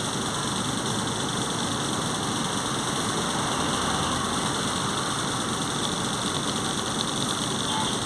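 Volkswagen 17.230 OD bus running steadily, with its engine and its loud, roaring transmission.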